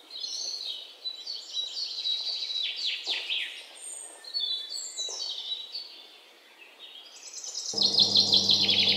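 Songbirds chirping and trilling in quick, repeated, high-pitched phrases. Near the end a steady low hum starts suddenly under the birdsong.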